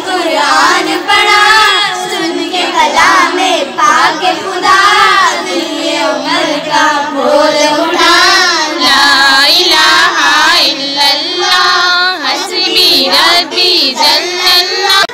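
Several young girls singing a devotional song together, without pause.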